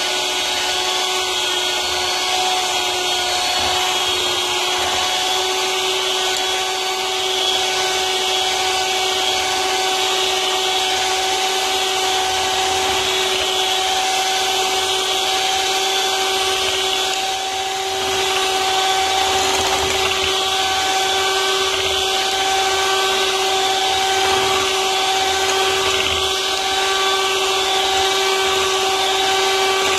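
Handheld electric mixer running steadily, its wire beaters whipping cream in a glass bowl: a constant motor whine that dips briefly about seventeen seconds in.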